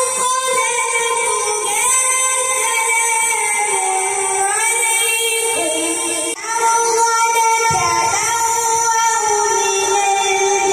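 A boy's high voice reciting the Quran in melodic qirat style through a microphone and PA, holding long notes with gliding ornamental turns. About six seconds in the sound breaks off abruptly and carries on in a different recording of the same recitation.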